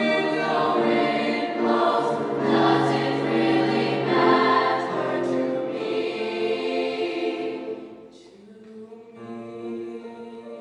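A large mixed choir of teenage voices singing in held notes. About eight seconds in the singing falls away sharply, leaving softer held notes.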